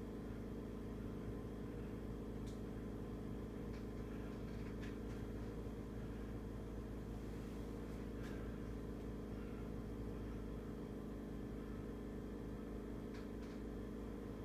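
Steady low hum of running equipment, with a few faint ticks.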